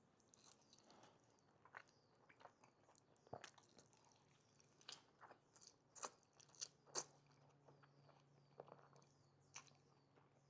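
Close-miked chewing of chili-topped pastrami fries: soft, scattered crunches and wet mouth clicks, quiet throughout.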